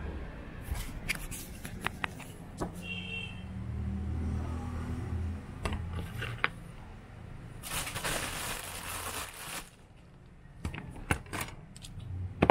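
Handling noise: scattered sharp clicks and knocks of hard plastic being moved, with a rustling stretch of about two seconds past the middle, over a low steady rumble.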